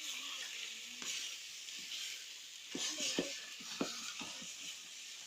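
Beans frying in cooking fat with onions and tomatoes in a pot, a steady sizzle, while a spoon stirs them and knocks against the pot several times in the second half.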